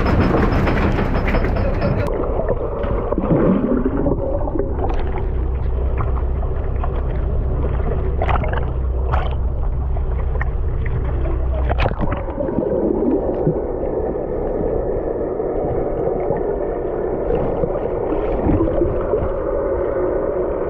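Water rushing and gurgling around a fish-filled net hauled up beside a fishing boat, heard muffled through an underwater camera after about two seconds. Scattered clicks and knocks, a few low gliding tones and a steady low hum run through it, and the hum changes about twelve seconds in.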